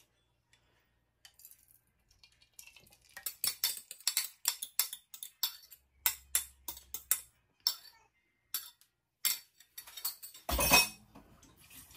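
A utensil clinking and scraping against a bowl in many quick, uneven strikes as the beaten egg and sardine mixture is emptied into the frying pan, then one louder knock near the end.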